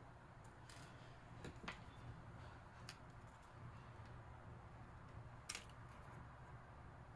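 A few faint, sharp clicks and taps of small tools and parts being handled inside an opened tablet computer, spread over several seconds, against a low steady hum.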